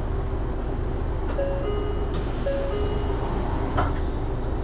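Inside an Isuzu Erga Hybrid city bus: a steady low rumble, with an electronic two-tone chime, high note then low, sounding twice. About two seconds in, a burst of air hiss lasts about a second.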